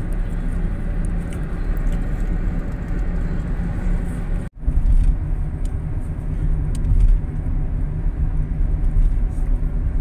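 Steady low rumble of engine and road noise inside a moving car on a highway. It drops out for a split second about four and a half seconds in, then carries on.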